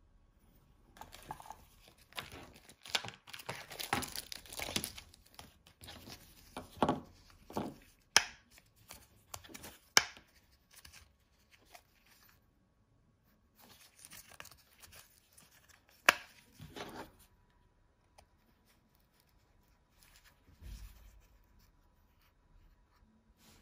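A small fixed-blade knife and its black stitched sheath being handled, with bursts of rustling and rubbing and three sharp clicks. Near the end comes a soft low thump as the knife is seated in the sheath.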